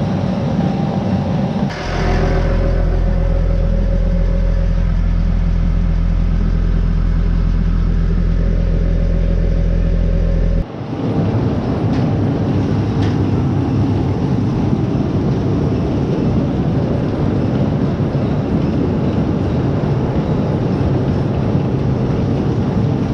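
Farm machinery running steadily, loud and unbroken. About two seconds in, a very steady low hum takes over, then cuts off suddenly about ten and a half seconds in, and a rougher running sound returns.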